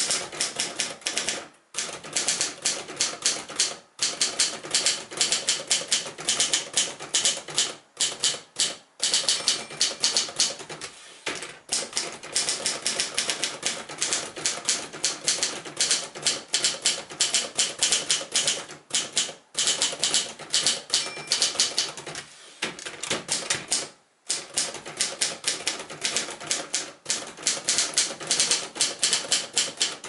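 1963 Adler J3 portable manual typewriter being typed on: quick, crisp key strikes of the typebars against the platen, several a second, broken by a few short pauses.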